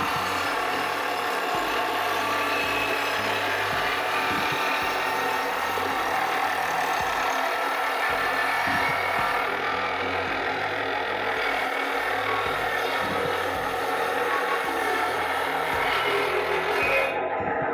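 Table saw running and ripping a long, weathered board lengthwise, the blade cutting steadily through the wood. Just before the end the high cutting noise drops away suddenly.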